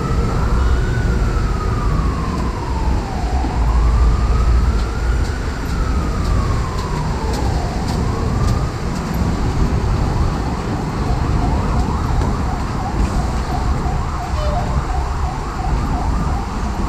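Emergency vehicle siren in a slow rising-and-falling wail, two full cycles, switching about nine seconds in to a rapid yelp, over a heavy rumble of city traffic.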